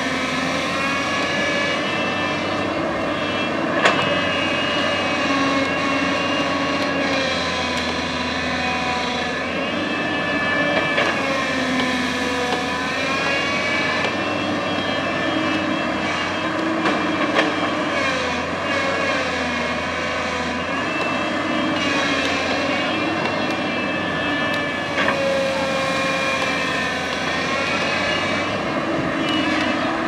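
JCB crawler excavator's diesel engine running under working load, with a whine that rises and falls as the boom and bucket move, and a few sharp knocks.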